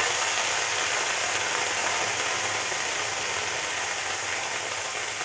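Steady sizzling hiss of chopped onion, tomatoes and green chillies cooking in a hot kadhai over a low gas flame, with one small click at the start.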